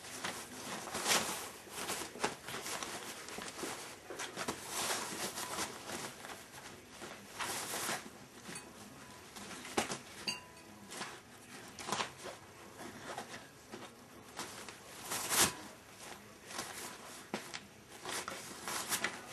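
Border Collie puppy chewing on a toy and shifting about in its pen, heard as irregular small clicks, scratches and rustles.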